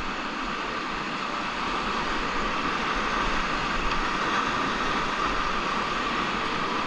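Steady rush of whitewater rapids around a river raft, an even hiss of moving water.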